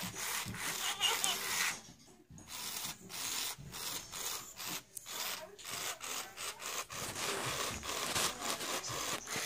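Scratchy rubbing and handling noise, close to the microphone: hands stroking and moving plush Furby toys, with a brief lull about two seconds in.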